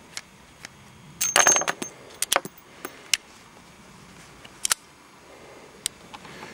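Smith & Wesson 686 .357 Magnum revolver being handled with its cylinder open: a cluster of metallic clicks and clinks with a brief ringing note about a second and a half in, then a few single clicks.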